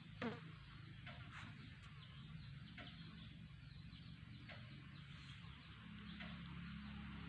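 A kitten mews once, a short call falling in pitch, about a quarter-second in. Faint short high chirps follow every second or two over a low steady hum.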